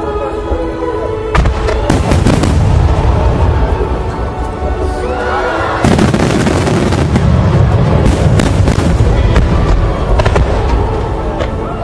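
Fireworks going off in a string of sharp bangs and crackles, sparse at first and coming thick and fast from about halfway, over music playing.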